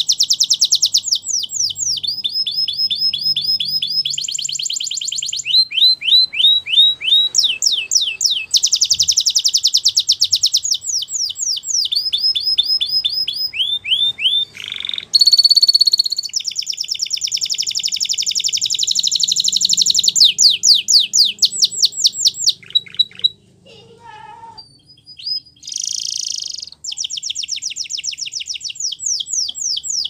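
Spanish Timbrado canary singing: a long, loud song made of phrases of rapidly repeated notes, switching to a new phrase every second or two, with a short break about 23 seconds in.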